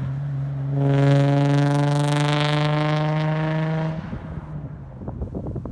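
2003 Nissan 350Z's VQ35DE V6 with non-resonated test pipes, Y-pipe and single-exit exhaust, driving past under steady throttle. The exhaust note swells about a second in, holds at a steady pitch that sags slightly, and falls away about four seconds in. Scattered knocks and wind rustle on the microphone follow near the end.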